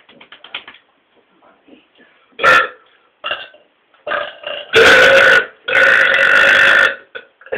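A man burping loudly on purpose: a short burp about two and a half seconds in, then two long burps near the end, the last held steadily for over a second.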